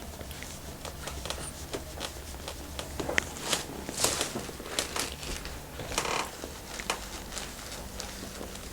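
Hands rubbing and brushing over skin and fabric during a massage: soft rustles and scattered light clicks. There is a louder rustle about four seconds in and another about six seconds in.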